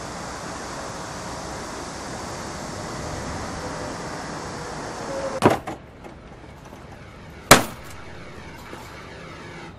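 Steady outdoor background noise, then a sharp knock about five and a half seconds in and a much louder, sharp bang about two seconds later against a quieter background.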